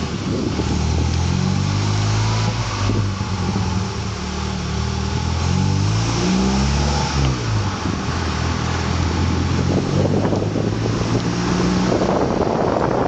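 Honda Accord driving, with its engine note falling and rising several times as the car slows and pulls away, under heavy wind noise on a microphone held outside the car.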